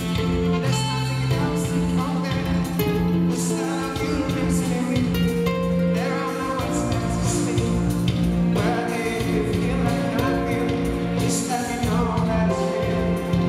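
A man singing into a microphone with a live band playing behind him, with drums and cymbals keeping the beat.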